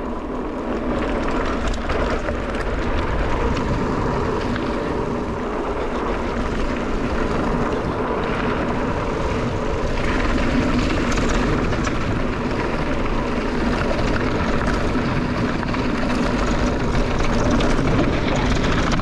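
Wind rushing over a GoPro's microphone and mountain-bike tyres rumbling over a rough, bumpy dirt trail at speed, with faint clicks and rattles from the bike.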